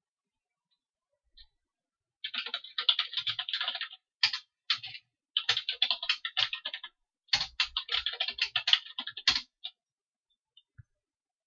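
Computer keyboard typing: fast runs of keystrokes in several bursts with short pauses between them, as a command is entered and a password is typed in twice.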